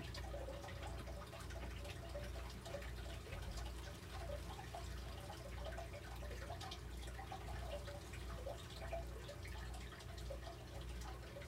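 Faint dripping and trickling water over a low hum that swells and fades about once a second, with scattered small ticks.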